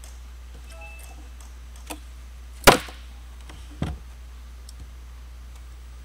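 A few sharp knocks and clicks from handling a rugged Panasonic Toughbook CF-30 laptop during shutdown: three hard taps, the loudest about halfway through, over a steady low electrical hum.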